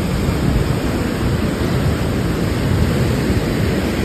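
Sea surf breaking and washing up the beach in a steady rush, with wind buffeting the microphone in a low rumble.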